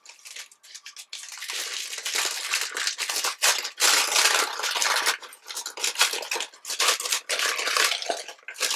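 Paper crinkling and rustling in an irregular run of crackles, starting about a second in, as a striped paper gift bag is handled and worked open.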